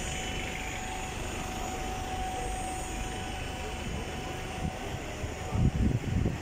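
A red London double-decker bus close by, its engine a steady drone over street traffic. A few loud low thuds come near the end.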